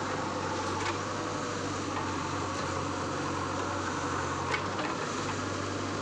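JCB backhoe loader's diesel engine running steadily, a constant low drone, with two faint clicks.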